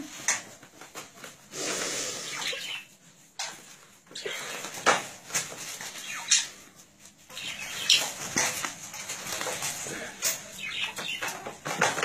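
Chihuahua puppies and a budgie scuffling about on a cloth-covered floor: irregular rustling of the pad, with many short sharp clicks and scratches.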